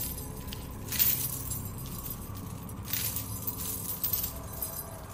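Background ambience track: a steady low rumble with jangling metallic clinks about a second in and again around three and four seconds.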